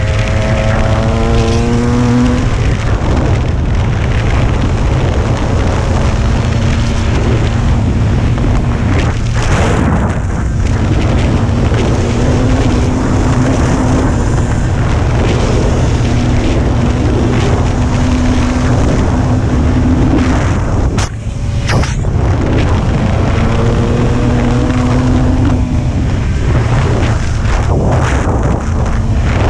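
Dirt bike engine running under load on a trail, its pitch climbing as it accelerates near the start and again about three-quarters of the way through. Around two-thirds through the engine note briefly drops away as the throttle is shut, then picks up again.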